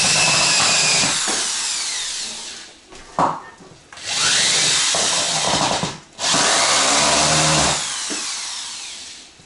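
Electric drill running in three long bursts, each one whining up to speed as it starts and winding down as it stops, while working overhead on ceiling boards. A short knock falls between the first two bursts.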